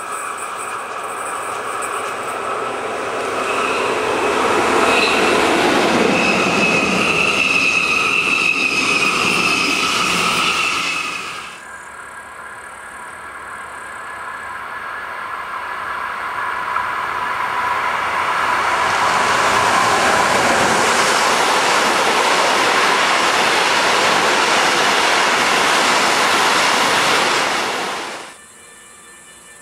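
An electric-hauled passenger train passes with a high, steady wheel squeal, then a freight train behind an electric locomotive passes with a loud, steady rolling noise that cuts off suddenly near the end.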